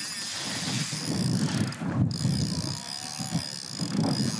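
Wind buffeting the microphone on a small boat in rough weather, a gusty low rumble that rises and falls, with a faint steady high whine behind it.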